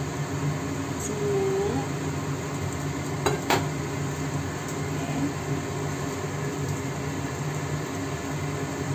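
Cooking oil heating in a nonstick frying pan on an induction hob: a steady faint sizzle over a low hum. A sharp clink of utensil or cookware comes about three and a half seconds in, and a lighter click about a second in.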